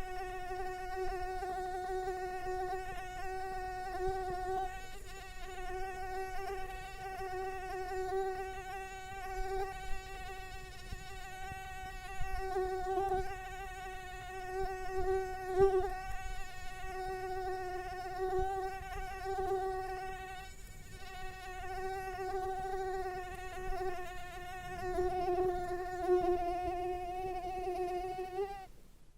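Mosquito buzzing: one continuous high whine of its wingbeat, wavering slightly in pitch and swelling and fading in loudness, cutting off near the end.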